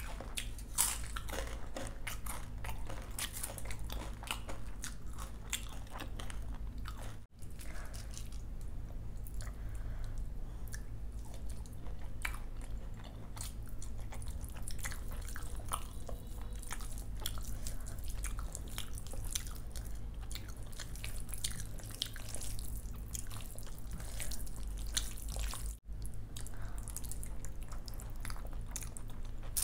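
Close-miked eating: steady crunchy biting and chewing of crisp fried snacks such as pakoras and chips, a dense run of small crackling crunches. The sound cuts out briefly twice.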